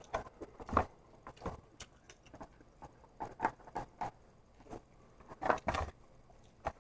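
Close-up eating noises from someone eating chow mein: irregular soft smacks, clicks and chewing sounds, a few at a time with short gaps between.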